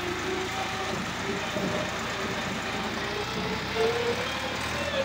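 Tractor engine running steadily as the tractor drives along.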